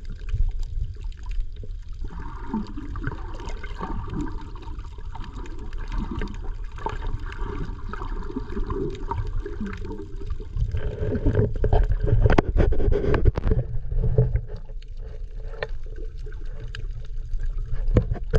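Muffled underwater sound from an action camera held below the surface while snorkelling: water sloshing and gurgling over a low rumble, with scattered clicks that grow more frequent about two thirds of the way through.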